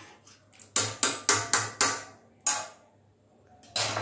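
A metal spoon or ladle knocking on the rim of a cooking pot after stirring rice: five quick taps, about four a second, then two single knocks.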